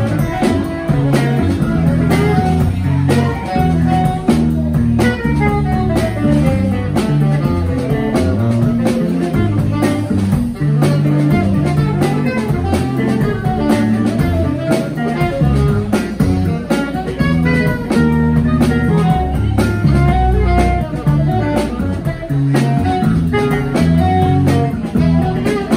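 Live jazz trio of saxophone, electric bass and drum kit playing an instrumental tune, with busy plucked electric-bass note runs over the drums.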